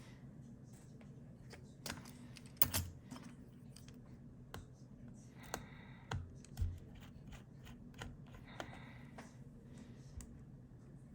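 Scattered small clicks, taps and a few light knocks from tools and small parts being handled while working on an opened MacBook Pro laptop, over a faint steady hum.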